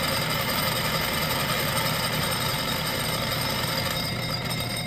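Atlas 618 6-inch lathe running with its spindle turning: a steady mechanical hum with whining tones from the drive, easing off slightly near the end.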